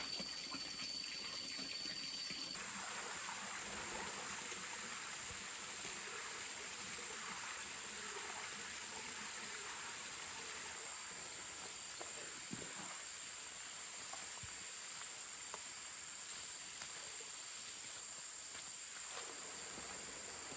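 Steady high-pitched insect chorus of crickets or cicadas. About two and a half seconds in, a lower steady note gives way abruptly to a higher one, which then holds.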